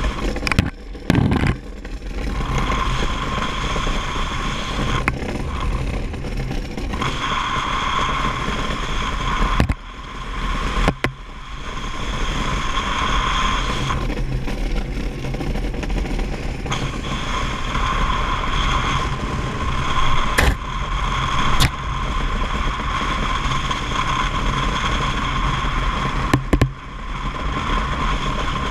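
Steel runners of a DN iceboat sliding fast over flat ice: a steady rushing hiss with a high ringing tone that drops away for a few seconds now and then. Several sharp knocks and clicks stand out, two of them close together about twenty seconds in.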